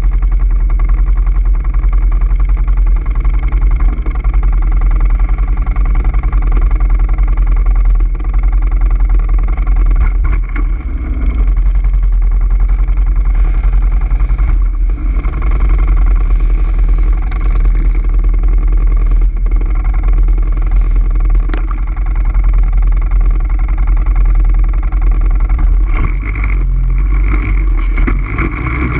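ATV engine running steadily while riding, with a strong low rumble and a few sharp knocks along the way.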